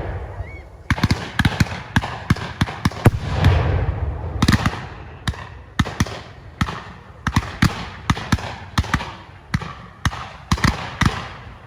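Fireworks going off in a rapid barrage of sharp bangs, two or three a second at irregular spacing, each followed by a short echo. There is a heavier rumbling boom about three seconds in, and the barrage stops just at the end.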